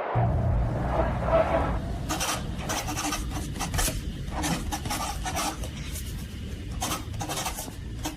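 Irregular scraping strokes, about two or three a second from about two seconds in, over a steady low rumble.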